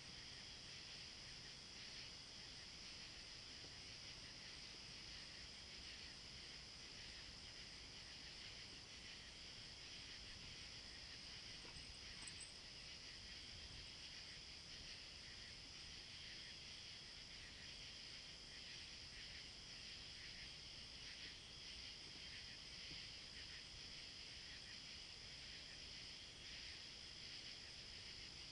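Near silence: a faint, steady high-pitched hiss of background noise, with no distinct sounds.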